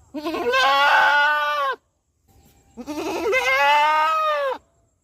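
Goat bleating twice: two long calls, each starting with a waver, the second a little longer than the first.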